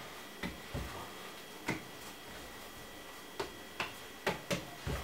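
Hands patting and handling roti dough on a floured countertop: a scatter of short, irregular taps and knocks, about eight of them.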